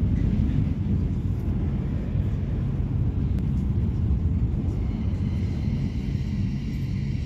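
Steady low rumble of a regional passenger train running along the track, heard from inside the carriage. A faint high tone joins about five seconds in.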